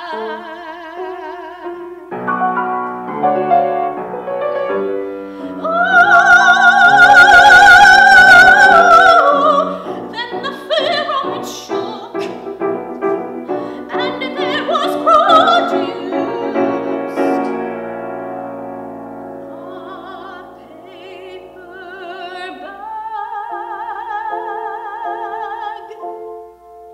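Operatic female voice singing with strong vibrato over piano accompaniment. It is loudest on a high note held from about six to nine seconds in, and quieter and softer toward the end.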